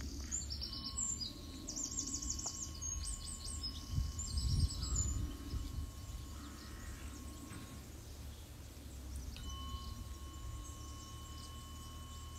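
Tuning fork struck and left ringing: a clear, steady high tone that starts just under a second in and dies away near eight seconds, then a fresh strike rings again about nine and a half seconds in. Birds chirp over the first half, and a low rumble swells around four to five seconds in.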